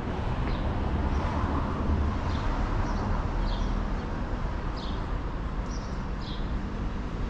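City street ambience: a steady rumble of traffic, with birds giving short high chirps every second or so.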